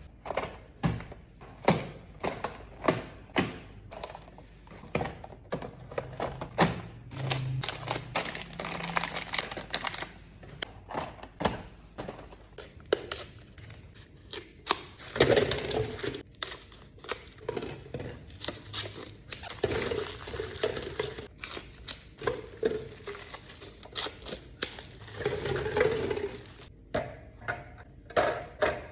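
Food containers and plastic packaging handled while restocking a fridge: a string of sharp clicks and knocks, with crinkling plastic about halfway through and again near the end.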